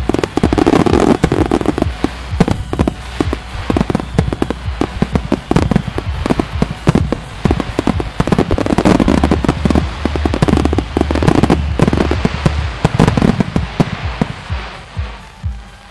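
Fireworks finale barrage: aerial shells and ground-fired star mines bursting in a rapid, dense string of overlapping reports. The reports thin out and get quieter near the end.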